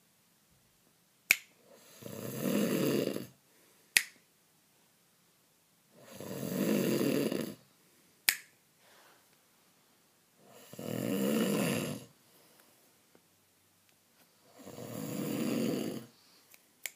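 A person snoring: four long snores at an even pace, about four seconds apart, with a sharp click in some of the gaps between them.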